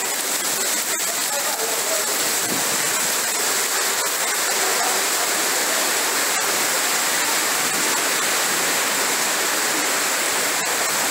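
Heavy storm rain pouring down, a steady, dense hiss.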